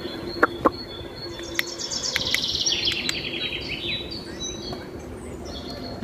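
A rapid run of high bird chirps lasting about two seconds, after two sharp clicks close together near the start.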